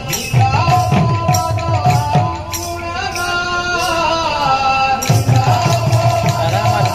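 Kirtan music: a sung devotional line over barrel drums (mridanga) and a steady cymbal beat. The drums play in two runs of strokes, one near the start and one again from about five seconds in.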